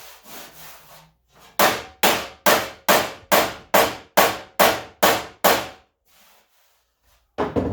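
A hammer striking the steel front fender of a 1978 Ford F100 that rests on a shot bag, knocking out dents: a steady run of about ten sharp blows, roughly two and a half a second, each dying away quickly. After a short pause there is another knock near the end.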